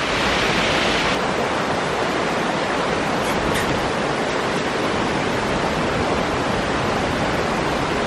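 River water rushing and splashing over rocks: a steady hiss of flowing water. A brighter hiss in the first second drops off abruptly about a second in, and the steady flow carries on.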